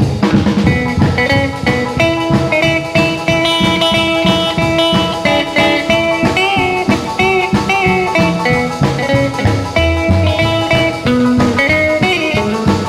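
Instrumental break of an upbeat rock and roll song: a lead guitar plays bending notes over a bass and drums with a steady beat.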